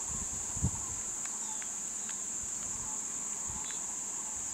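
Steady high-pitched drone of insects in the forest, with a single low thump about half a second in and a few faint short chirps.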